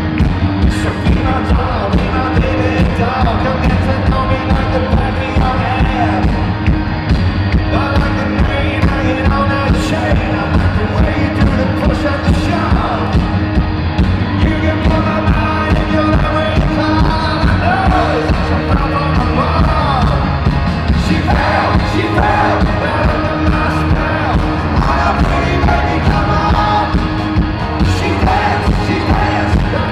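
Live rock band playing with a steady beat and singing over it, heard loud from the audience.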